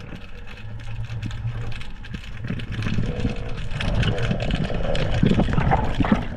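Underwater noise picked up by a diving camera: a steady low rumble that grows louder and rougher after about two seconds, with water rushing and many small crackling clicks.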